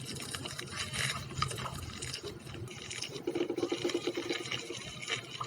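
Close-up wet eating sounds: chewing and mouth smacks with repeated small clicks, and a brief low humming tone about three seconds in.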